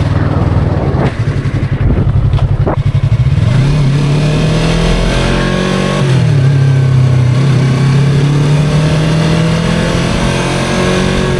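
2023 Yamaha R3's 321 cc parallel-twin engine pulling away while riding: low pulsing revs with a few sharp clicks, then the revs climb, dip briefly at a gear change, and hold at a steadier, higher note. A faint high whine sits above the engine, which the rider hears while riding and cannot explain.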